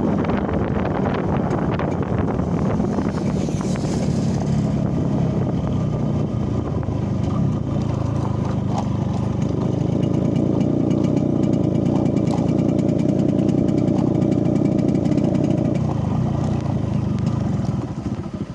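Yamaha RX-King two-stroke single-cylinder engine running steadily, its exhaust set up for the deep "ngorok" (snoring) note. The sound fills out a little past the middle and drops away near the end.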